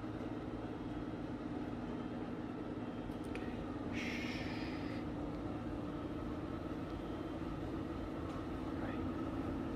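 Steady low mechanical hum, with a short soft hiss about four seconds in.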